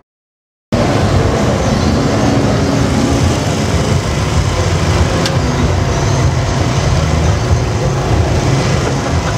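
Under a second of dead silence, then a steady low drone of running vehicle engines over a constant background hiss, with one faint click about five seconds in.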